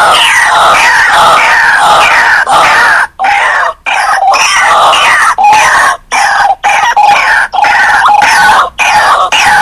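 White-breasted waterhen calls from a lure recording: a loud, raucous run of rapidly repeated notes, each falling in pitch, several overlapping, with a few short breaks.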